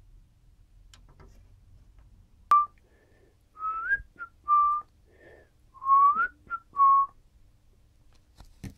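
A person whistling a short tune of about half a dozen notes, two of which slide upward.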